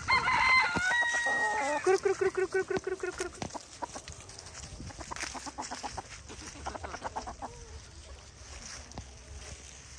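Backyard chickens clucking and calling, loudest in the first three seconds with wavering, drawn-out calls and a quick run of repeated notes, then softer clucking.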